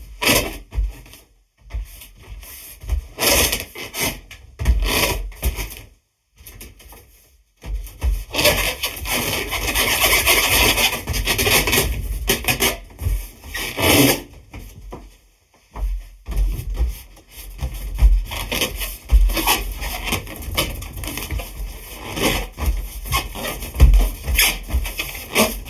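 Hands rubbing and squeezing an air-filled sheet-latex balloon, the rubber squeaking and scraping in irregular bursts. A few seconds in, there is a longer stretch of continuous rubbing.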